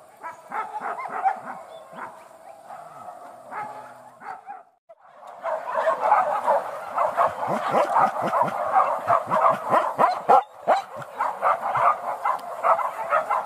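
A pack of hunting dogs barking and yelping, many calls overlapping. The calls break off briefly about five seconds in, then come back louder and thicker.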